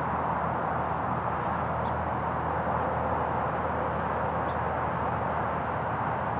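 Steady drone of interstate highway traffic. Two faint, short, high sparrow call notes sound over it, about two seconds in and again past the middle.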